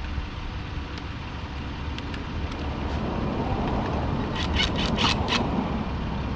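Van engine idling with a steady low hum, and about four and a half seconds in a quick run of about five metallic clicks as lug nuts are run back onto the wheel by hand.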